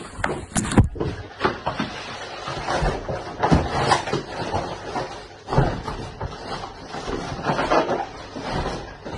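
Irregular bumps, knocks and clattering of household objects being shifted around a door, with a sharp knock about a second in.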